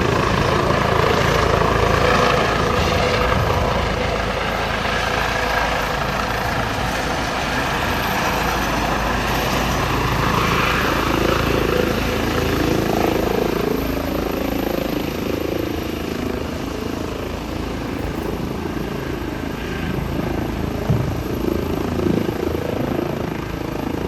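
Air ambulance helicopter flying, its rotor and engine running steadily and slowly growing fainter.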